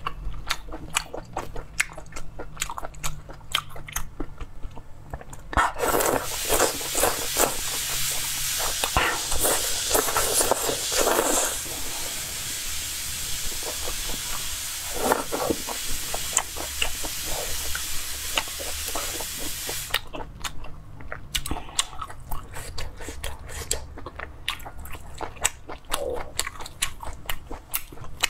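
Close-miked eating of chewy noodles in chili-oil broth: wet chewing and mouth clicks at first and again from about twenty seconds in, with a long stretch of loud, noisy slurping and sucking in between.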